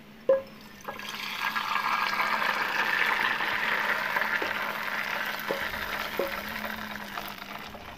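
Still-hot garlic oil for mie ayam, with its fried garlic, poured from a frying pan into a small bowl. The pouring swells after about a second and slowly fades. There is a knock at the start and a few light taps of the spatula scraping the pan.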